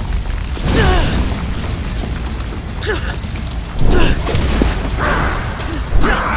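Fight-scene sound effects over bass-heavy music: four heavy booming impacts, with short vocal cries between them.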